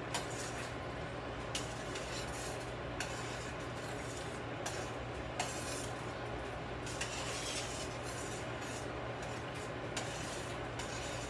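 Metal spoon stirring soup in a stainless steel pot, with a few light clinks against the pot, over a steady hiss and low hum.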